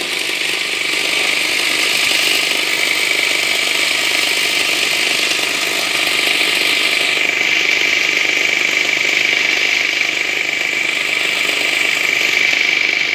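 Countertop blender running steadily, blending lemon and mint into a drink: a loud, even motor noise with a steady high whine on top, its tone shifting slightly about seven seconds in.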